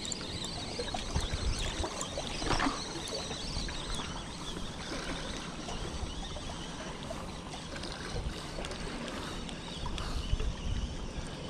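Sea water washing and sloshing among shoreline rocks: a steady hiss with small crackles.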